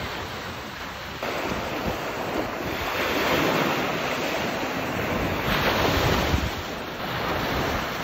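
Small sea waves breaking and washing up on a sandy shore, the surf swelling and easing as each wave comes in, with wind buffeting the microphone.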